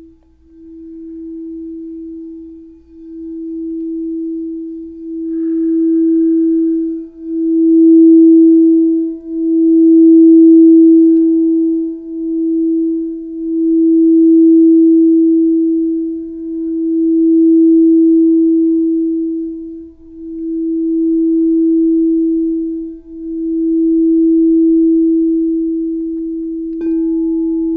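Singing bowl for the solar plexus, played around the rim: one steady, pure tone that swells and fades in waves every two to three seconds.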